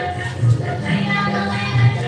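Music playing, with held melody notes over a repeating low beat.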